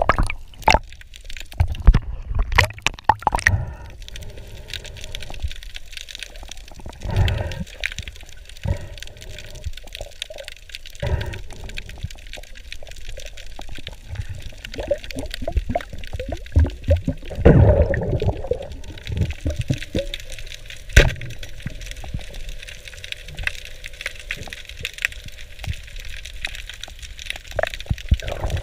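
Underwater sound through an action camera's waterproof housing: water sloshing and gurgling with scattered sharp clicks and knocks. A single sharp crack about two-thirds of the way through is the speargun firing.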